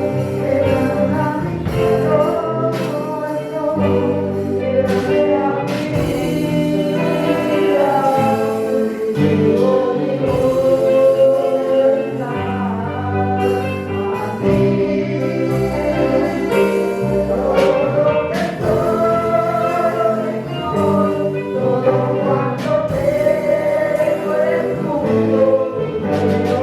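Gospel music: a choir singing with instrumental accompaniment.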